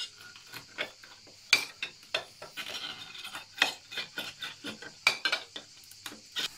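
A small glass pressed and worked down inside a glass jar to crush hazelnuts soaked in alcohol, giving irregular clinks, knocks and grinding of glass on glass and on the nuts, with a few sharper knocks among them.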